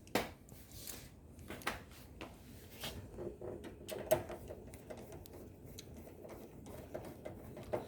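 Irregular light metallic clicks and scrapes of screws being fitted and turned to fix a power supply unit into a metal computer cabinet, with a sharper click about four seconds in.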